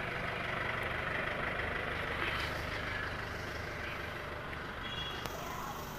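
Mitsubishi double-cab pickup's engine running steadily, growing slightly fainter toward the end as the truck moves off.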